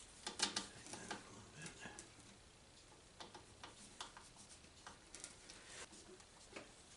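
Faint, irregular clicks and light taps of hand tools and small metal parts being handled, busiest about the first second.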